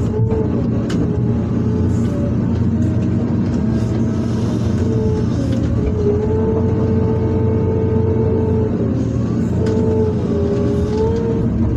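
Excavator's diesel engine running steadily under load, with a hydraulic whine whose pitch rises and falls as the arm and bucket work, and a few sharp clicks.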